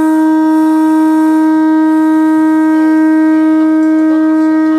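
Kurobe Gorge Railway train's departure horn sounding one long, loud blast at a single steady pitch, cutting off sharply near the end. It is the signal that the train is about to pull out.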